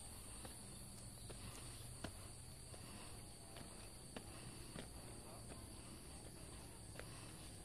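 Faint footsteps on a dirt forest trail, irregular light steps, over a steady high-pitched insect chorus.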